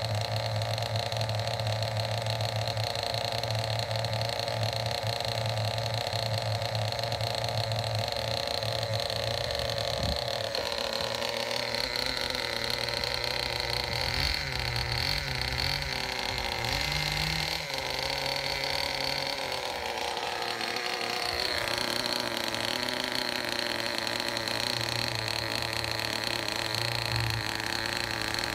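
Small nitro glow engine of a Kyosho Pedal Popper RC car running on the bench after a rebuild. It runs steadily, its note shifts and wavers about ten seconds in, then settles into a steady run again after about twenty-one seconds.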